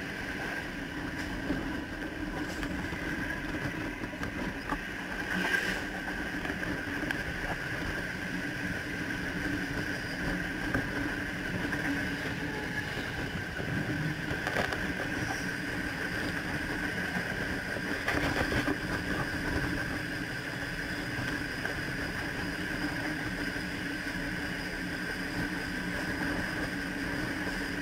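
Electric suburban train running at speed: a steady rumble of wheels on the rails with a steady hum and a higher whine. A few brief clacks stand out, the sharpest about five seconds in, with a louder stretch around eighteen seconds.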